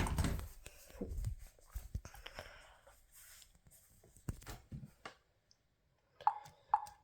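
A few soft clicks and knocks of handling, then near the end two short electronic pinging beeps from a Ring Alarm device, each ringing briefly and fading.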